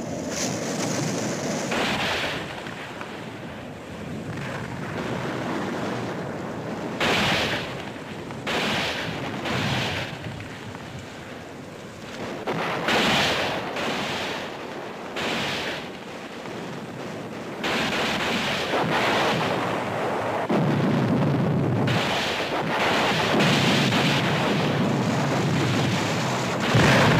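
Battle sound effects from a 1960s war film soundtrack: a steady rushing noise of fire and blasts, broken by several sudden loud bangs of gunfire and explosions. A heavier low rumble builds in the last third.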